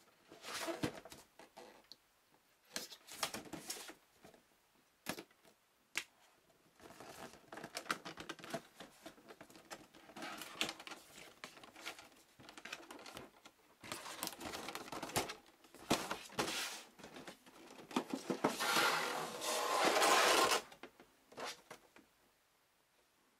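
Cardboard packaging handled by hand: flaps rubbing and folding open, with scrapes and light taps coming and going. Near the end a longer, louder rustling scrape as the clear plastic blister tray is drawn out of the box.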